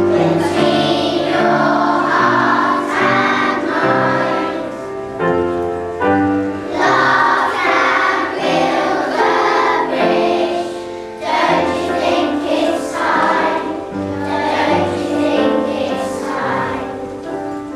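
A group of young children singing a song together in chorus, over a steady instrumental accompaniment.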